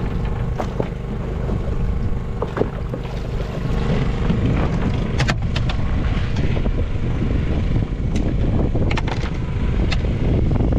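Fishing boat's engine running steadily with a low rumble, with a few sharp knocks and clicks over it.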